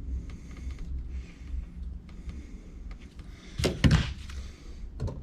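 Small handling noises of wiring a cord-cap plug: light scraping and clicking of the wire and plug parts, with a couple of sharper knocks about three and a half seconds in, over a steady low hum.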